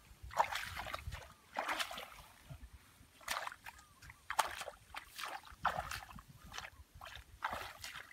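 Splashing in shallow muddy water as a person wades barefoot through grass and feels about with his hands: about six uneven splashes.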